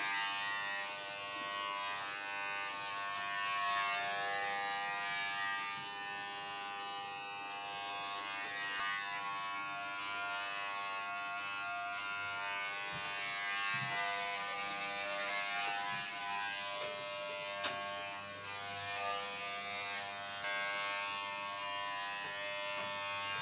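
Corded WAHL Pet-Pro electric pet clipper running with a steady buzz as it shears through a small dog's long coat.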